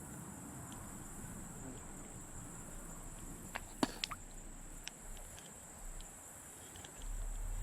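Faint, steady high-pitched insect trilling, with a few sharp light clicks about three and a half to four seconds in.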